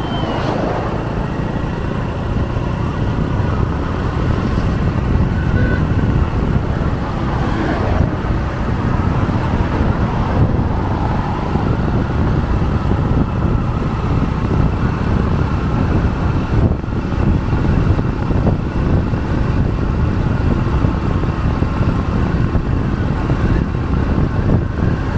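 Steady wind rush on the microphone and road and engine noise from a vehicle moving along a highway.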